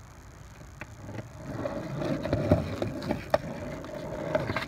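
Skateboard wheels rolling on a concrete sidewalk: a rumble that builds from about a second in, with a few sharp clacks along the way.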